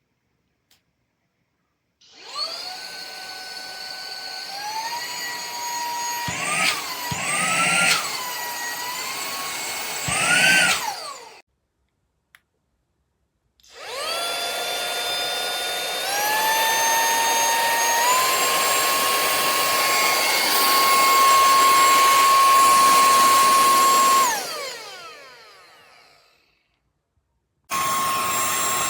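Higoom 4-in-1 cordless handheld vacuum cleaner's small motor running with a high whine. It is switched on and stepped up in pitch, wavers up and down with louder surges, then is switched off and spins down. It starts again, steps up twice to a steady high whine, is switched off and winds down over a couple of seconds, and starts once more near the end.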